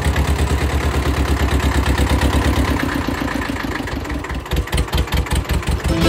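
Hanomag Perfekt 300 tractor's diesel engine running at a steady speed, then throttled back about three seconds in to a slower, lumpier idle in which the single firing pulses can be heard apart.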